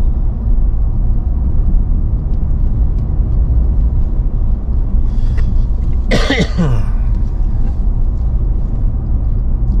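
Steady low rumble of the 2023 Nissan Frontier PRO-4X driving with a trailer in tow. About six seconds in a person briefly clears their throat.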